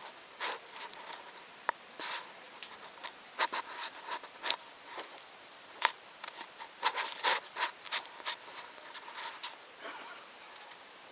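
Soft, irregular footsteps with rustling and scraping as someone walks slowly through the rooms, a few sharp ticks standing out, then it goes quiet near the end.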